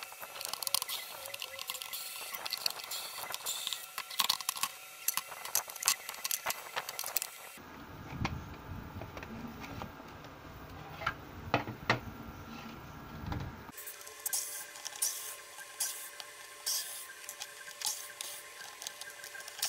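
Hands handling the plastic housing, circuit board and wiring of an opened ultrasonic humidifier: irregular clicks, taps and light rattles of plastic parts. The background hiss changes abruptly twice where the footage is cut.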